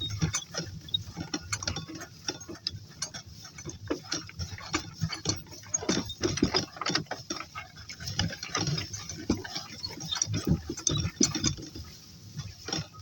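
Irregular clicks, knocks and rustles of walking over rough ground.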